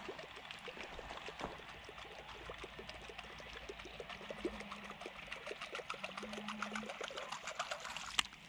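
Faint water gurgling and trickling in a quick, even run of small clicks, about ten a second, as a fishing lure is wound back across the dam's surface.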